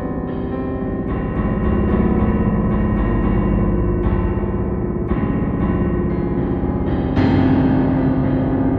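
Slow instrumental music of sustained chords, with new notes coming in every second or so and a louder chord entering about seven seconds in.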